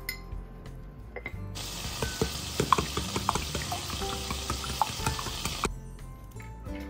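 Eggs being beaten with a wooden utensil in a glass bowl: quick, irregular clicks and taps against the glass over a steady hiss. It starts about a second and a half in and stops suddenly about a second before the end.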